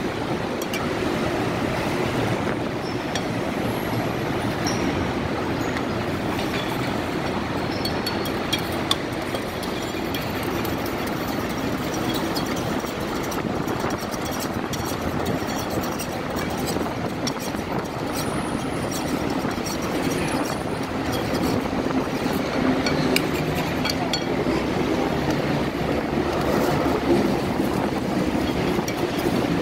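Steady, dense roar of heavy road traffic, with a few faint clinks of kitchen utensils over it.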